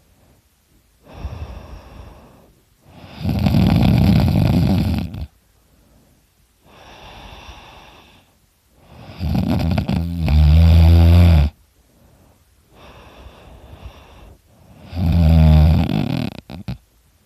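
A man snoring very loudly in his sleep: three loud snores about six seconds apart, each with a quieter breath between, the second and third with a deep rattling buzz.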